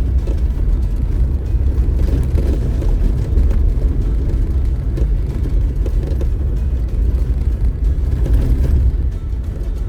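Off-road vehicle driving along a dirt trail: a steady low rumble of engine and tyres.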